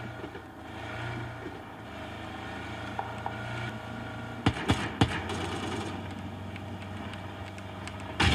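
A video-game vehicle engine running steadily in PUBG Battlegrounds, with a few sharp cracks about halfway through and another near the end.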